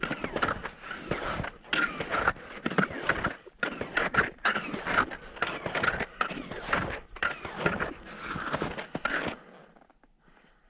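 Crunching steps at a steady walking pace, about one heavy step a second, that stop about nine seconds in.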